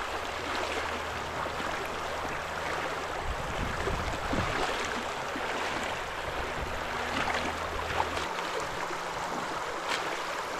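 Shallow river riffle running steadily over rocks, a constant rushing of water.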